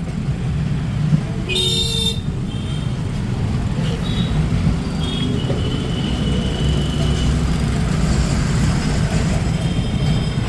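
Busy street traffic with vehicle horns honking over a steady low rumble. A short loud horn blast comes about one and a half seconds in, followed by several shorter beeps and a longer held horn tone around the middle.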